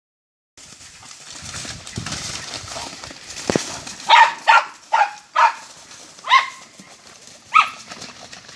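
Two wild boar sows fighting: scuffling and rustling in dry straw and leaves, then about half a dozen short, sharp squeals in quick succession in the second half.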